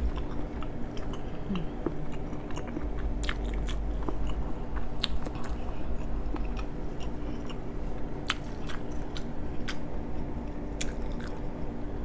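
A person chewing a mouthful of boiled jumbo shrimp close to a clip-on microphone: irregular clicks and smacks of the mouth over a faint steady hum.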